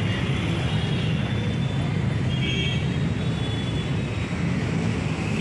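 Steady low rumble of engine and wind noise, heard from on board a vehicle moving along a road.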